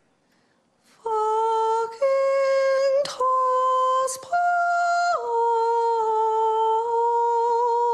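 A woman's solo voice singing a slow, chant-like line in long held notes, stepping up and down between a few pitches with quick breaths between phrases, then holding one long final note for about three seconds.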